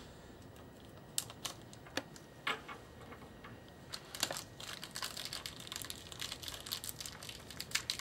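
Small plastic bag of BNC crimp connector parts being handled and opened. A few scattered crinkles and clicks come first, then a dense run of rapid crinkling and clicking from about halfway.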